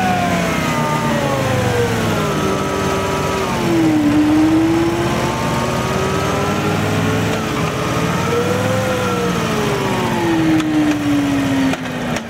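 Harley-Davidson V-twin motorcycle running on a stationary roller stand, with a whine that falls, climbs slowly again, then falls away near the end as the speed changes.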